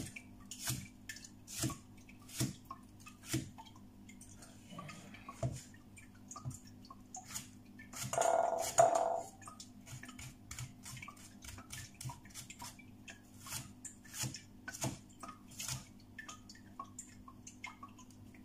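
Kitchen knife chopping a tomato on a cutting board: short, even taps a little under one a second, coming quicker in the second half. A brief louder sound breaks in about eight seconds in.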